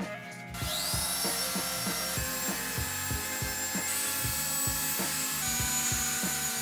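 A Festool orbital sander starts up about half a second in with a rising whine, then runs steadily on a wooden tabletop. Background music with a steady beat plays underneath.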